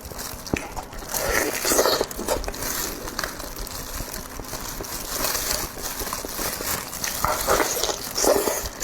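Close-miked eating sounds: chewing and biting food in irregular noisy bursts, the biggest about a second in and again near the end.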